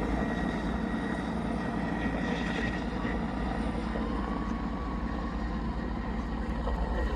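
Police helicopter's rotor and engine running steadily, a constant low, rapid beating that neither rises nor fades.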